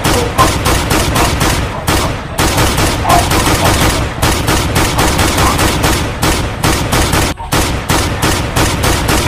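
Rapid gunfire sound effects, a dense stream of about five shots a second, with one short break about seven seconds in.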